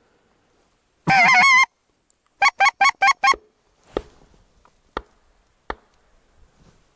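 Goose honks, loud and close: one long wavering honk about a second in, then five quick short honks. A few faint clicks follow.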